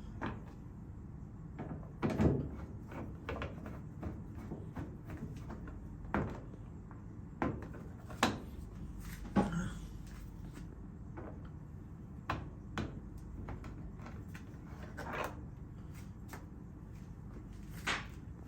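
Irregular clicks and knocks of a screwdriver and hands working screws out of the plastic control panel of a top-load washing machine, about a dozen in all, over a steady low hum.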